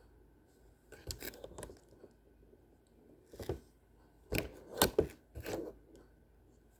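Packaging being handled and opened by hand: a handful of short, irregular scrapes and rustles, the loudest few in the second half.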